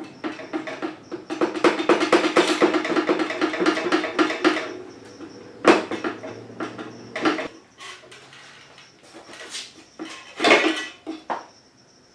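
Old metal exhaust muffler being worked off a dirt bike's header pipe: a few seconds of rapid metallic rattling and clicking, then several separate clanks and knocks as the pipe comes free and is handled.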